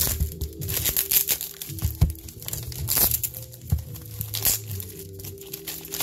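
Plastic bag packaging crinkling and tearing as it is pulled apart by hand, with music playing in the background.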